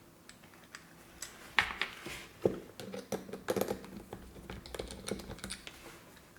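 Scattered small clicks and taps of a screwdriver and plastic parts as a replacement twist-blade electric plug is being unscrewed and taken apart by hand.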